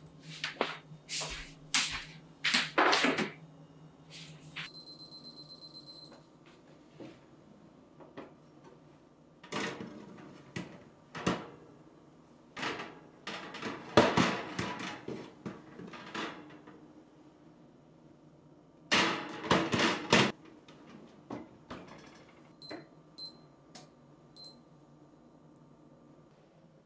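A metal baking sheet clatters against oven racks and the oven door opens and shuts, in several bouts of clanking. A digital kitchen timer beeps: a rapid run of high beeps, then later four short button beeps.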